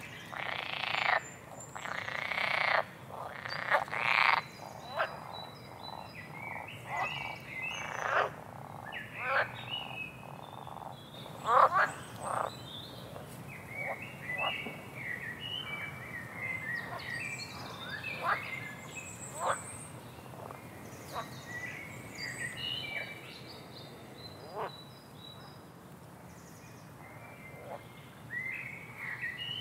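Wild forest calls: a string of loud, harsh croaking calls in the first few seconds, then scattered bird chirps and whistles.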